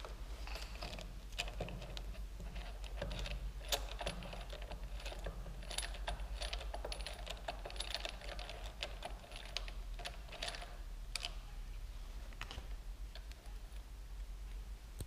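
Irregular small clicks and light scraping of a screwdriver working screws in motorcycle handlebar fittings by the brake lever, with tool and parts knocking lightly, over a low steady hum.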